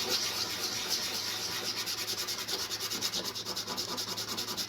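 A small nylon inlay dot being smoothed by hand against an abrasive, with quick, even back-and-forth rubbing strokes.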